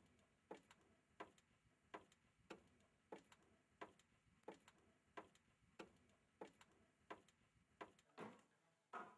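High-heeled shoes stepping up wooden stairs: evenly paced, sharp footsteps about three every two seconds, with two louder, heavier steps near the end.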